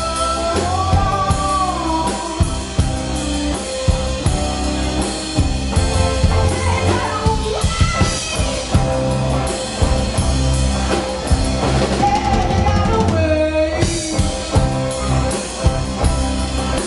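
Live band playing: drum kit, bass guitar and guitars, with a woman singing lead vocals.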